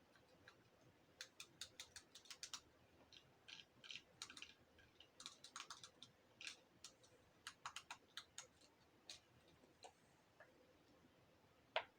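Fidget toys being handled and pressed: a run of quick, irregular small clicks and pops that thins out after the middle, with one sharper click near the end.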